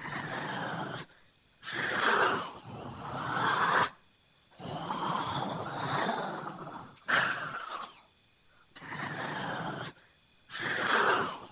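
Male lion roaring: a run of about six long calls, each a second or two, with short breaks between them.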